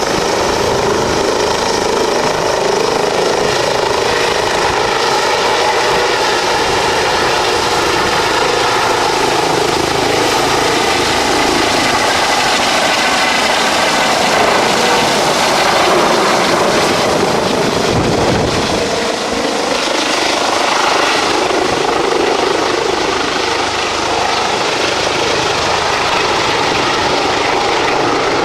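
Eurocopter EC-135 twin-turbine helicopter running steadily close by: a constant rotor and turbine noise with a steady whine. There is a brief deeper rumble about eighteen seconds in.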